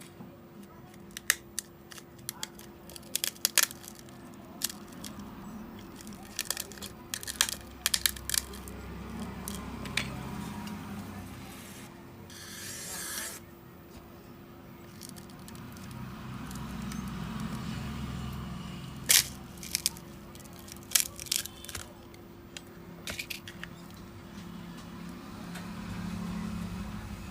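Small tools and phone parts being handled on a repair bench: scattered sharp clicks and ticks, with a short hiss about halfway through, over a steady low hum.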